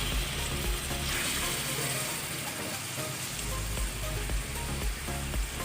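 Chicken pieces sizzling in hot oil with garlic and onion in a pan, sautéing, with some light clicking and scraping.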